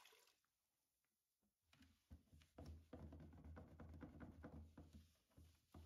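Near silence, with faint rubbing and light taps from about two and a half seconds in as a damp cotton cloth is wrung out and wiped over a painted nightstand top.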